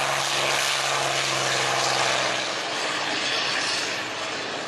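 North American P-51D Mustang's Packard Merlin V12 engine and propeller at full power on the takeoff run and liftoff: a steady, loud drone whose even engine note fades a little after about two and a half seconds as the aircraft pulls away.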